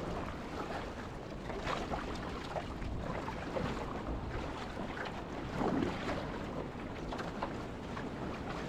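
Choppy ocean water splashing and slapping against the side of a small boat, with wind buffeting the microphone.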